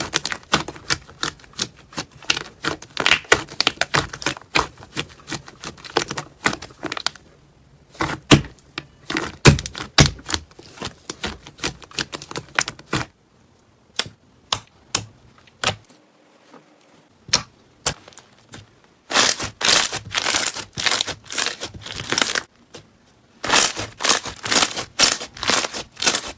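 Slime being squeezed and poked, giving rapid crackling clicks and pops. About halfway through the crackling thins to scattered pops, then comes back dense near the end.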